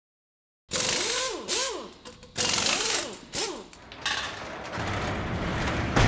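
Produced intro sound effects: short bursts of harsh mechanical clatter with swooping whines that drop and rise in pitch, then a deep rumble that builds to one heavy hit at the end.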